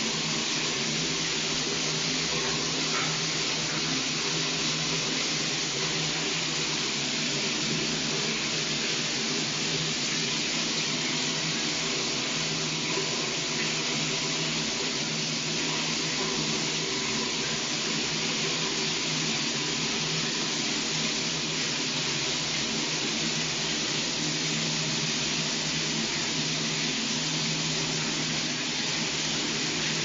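A shower running: water spraying in a steady, even hiss that never changes.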